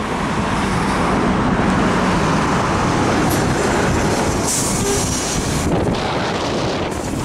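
Steady rumble of a ZiU-682 trolleybus on the move, heard from inside, with a short high hiss a little past halfway.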